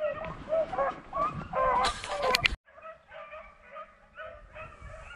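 A pack of rabbit-hunting dogs baying and yelping on a rabbit's trail, with a brief loud scrape about two seconds in. After about two and a half seconds the baying is suddenly fainter and continues as repeated calls.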